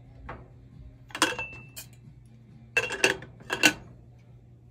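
Small metal jeweller's tools clinking against metal and hard surfaces: a handful of sharp clinks, loudest about three seconds in, one ringing briefly, over a steady low hum.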